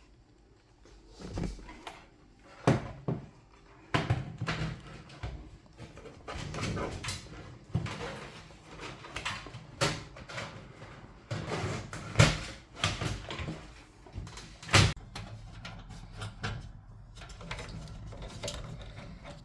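Hands handling computer parts and hardware: an irregular series of knocks and clicks with rustling between them, the sharpest knocks about three, twelve and fifteen seconds in.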